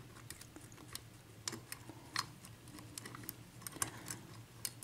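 Faint, irregular small clicks and taps from handling a Dorma 7-pin mortise lock cylinder and lock-picking tools.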